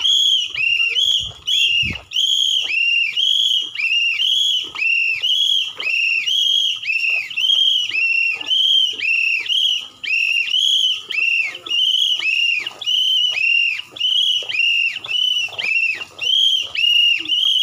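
A whistle blown in a steady run of short, high blasts, about two to three a second, each rising and falling slightly in pitch.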